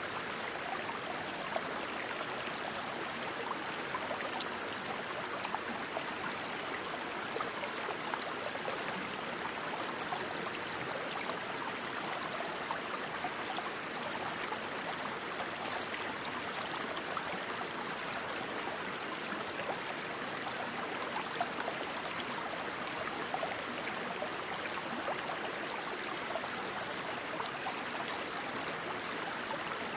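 Steady rushing stream water. Short high-pitched chirps recur irregularly over it, with a quick run of them about halfway through.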